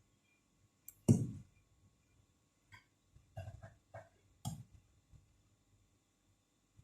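A few short handling knocks and clicks on an opened laptop as the sticker or tape on its SSD is picked at, the loudest a dull knock about a second in, followed by several smaller clicks.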